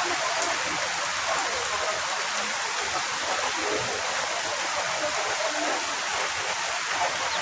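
Steady heavy rain, a dense even hiss of falling drops with no let-up.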